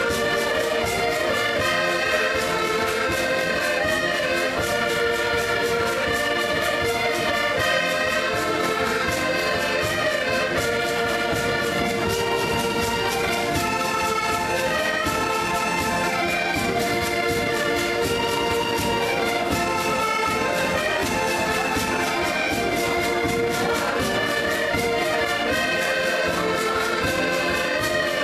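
An ensemble of accordions playing a tune together, with held chords that change in step over a steady beat.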